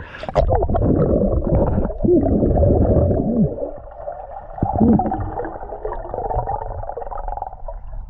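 Water gurgling and sloshing heard through a submerged camera, muffled, with almost nothing high-pitched. A few short, low wavering tones come through about two to five seconds in.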